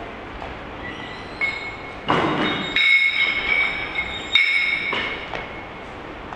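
15 kg steel women's weightlifting bar clanking and ringing as it is lifted and caught: a few sharp metallic clanks, the loudest about three and four and a half seconds in, each leaving a high ringing tone that fades.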